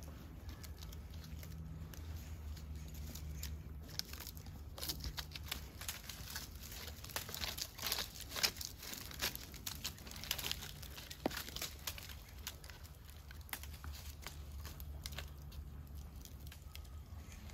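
Scraping and rustling of a climbing hunter's gear and boots against a tree trunk and Sladder rungs, with a run of sharp clicks and knocks through the middle.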